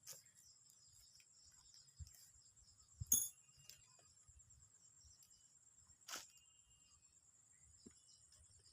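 Faint, steady, high-pitched drone of insects, broken by a few sharp clicks, the loudest about three seconds in and another about six seconds in.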